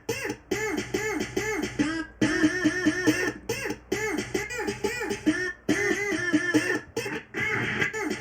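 Electronic music loop playing back from Ableton: rapid chopped pitched notes, about six a second, each bending up and back down, broken by short gaps every second or two.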